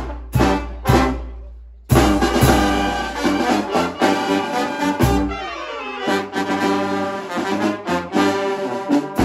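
Mexican brass banda playing a pasodoble: trumpets, trombones, sousaphone and clarinets over drums and cymbals. Two accented chords at the start ring away into a short pause, then the full band comes back in about two seconds in.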